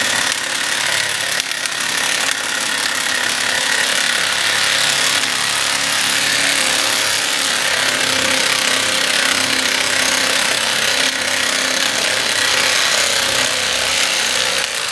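Milwaukee cordless impact wrench hammering steadily without a break as it turns the screw of a cylinder liner puller, drawing a cylinder sleeve out of the engine block.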